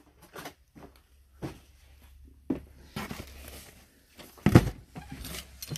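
Toy packaging and cardboard boxes being handled: scattered rustles and light taps, with one louder thump about four and a half seconds in.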